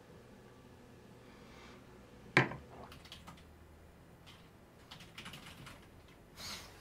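A ceramic mug set down on a hard surface with one sharp knock about two seconds in, followed by a few faint clicks and a short breathy hiss near the end.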